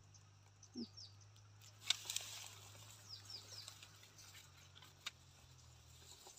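Faint bird chirps, short high notes in small groups, a few times. About two seconds in there is a sharp click and a brief patter of water as the lift net is raised dripping from the pond.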